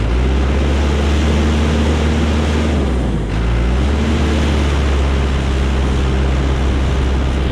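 Diesel engine of a snow-plowing loader, running hard under load. Its pitch sags briefly twice, near the start and about three seconds in, and climbs back each time.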